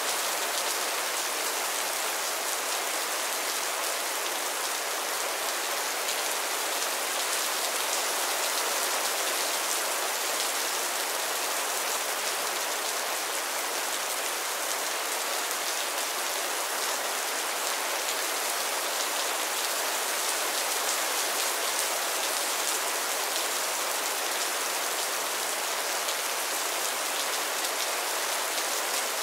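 Heavy rain falling in a steady, even hiss of countless drops, with no thunder.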